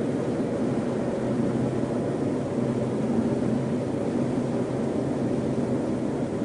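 Strong storm wind blowing steadily, a low, even rush with no gusts or breaks.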